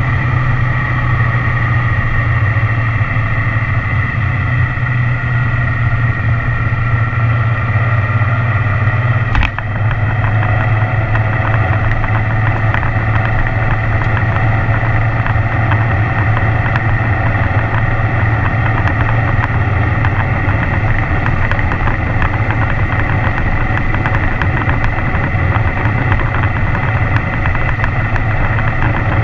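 Motorcycle engine running steadily under way, with rushing wind noise over it. About nine seconds in there is one short knock and a brief dip in loudness, then the engine carries on steadily.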